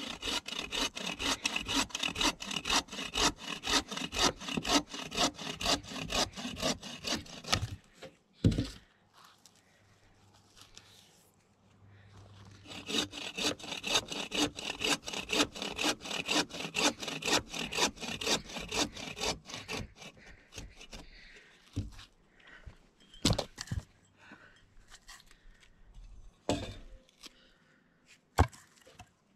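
A hand saw cutting through branch wood in quick, even back-and-forth strokes, in two spells with a pause between them. A sharp wooden knock comes about eight seconds in, and a few scattered knocks follow near the end.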